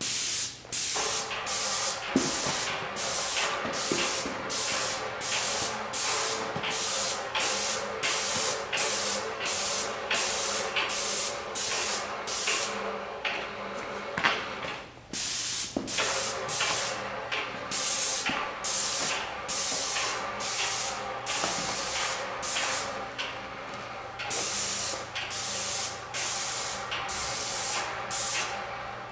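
Paint spray gun spraying primer onto cabinet doors in short passes: the hiss of the spray switches on and off about twice a second as the trigger is pulled and released, with a brief pause about halfway through. A faint steady hum runs underneath.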